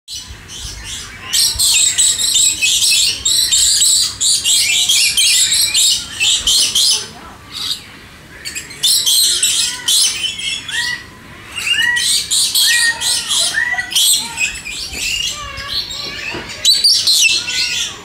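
Many birds chirping and calling in long, busy bouts of high-pitched notes, with short lulls between them. From about halfway through, clearer arched whistled notes sound beneath the chirping.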